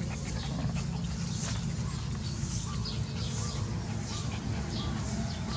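Puppies whining in short, repeated cries over a steady low rumble.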